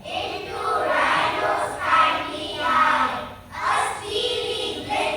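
A group of children's voices reciting verse in unison, in phrases with a chanted, sing-song rhythm.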